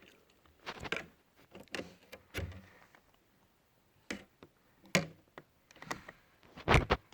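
Irregular clicks, taps and knocks from parts of an HP ProBook 430 G5 laptop being handled and taken apart, the loudest knock about a second before the end.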